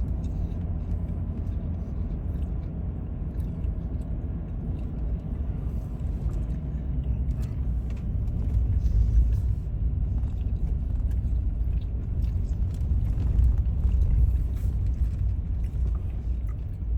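Steady low road rumble of a moving car, tyre and engine noise heard from inside the cabin.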